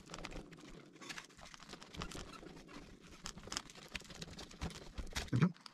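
Plastic prying card scraping and crackling as it is worked through the adhesive under a MacBook Pro's battery cells: faint, irregular small clicks and scratches.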